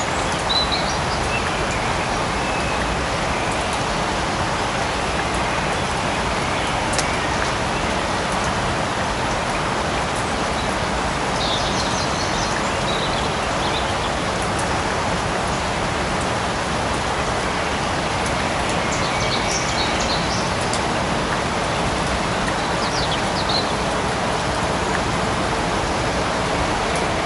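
Light rain falling steadily in a forest, an even hiss of drops. A few brief, faint high chirps come through the rain here and there.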